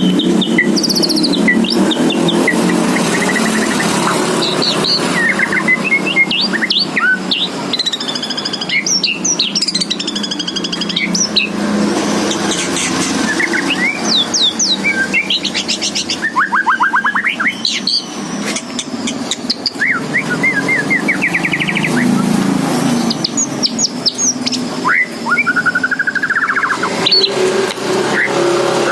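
White-rumped shama singing continuously in full, varied song: rapid trills, rising and falling whistles and chattering phrases, one after another, over a steady low hum.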